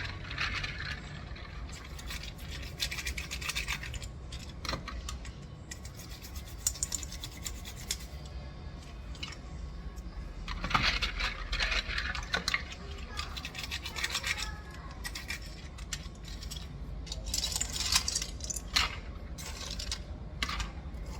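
A bristle brush scrubbing over a mechanical keyboard, in stretches of scratchy strokes with small clicks scattered between them.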